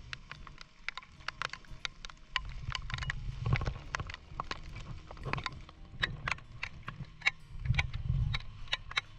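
Irregular sharp clicks and knocks, with two swells of low rumbling noise.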